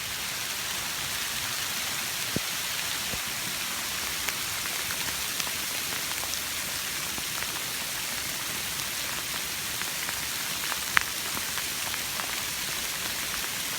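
Hail falling steadily, a constant hiss with scattered sharp ticks of single hailstones striking, one louder crack about eleven seconds in.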